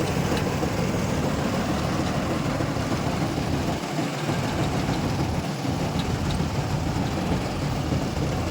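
John Deere combine harvester's engine running steadily with a heavy low drone.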